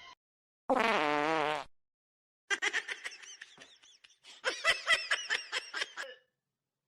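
A fart-like buzzing tone, about a second long, about a second in, followed by a few seconds of quick, high, wavering chirps and clicks.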